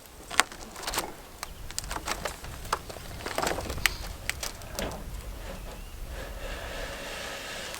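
Scattered knocks and clanks as the portable sawmill head is shifted into place on its bed, over the low steady rumble of a tractor engine running.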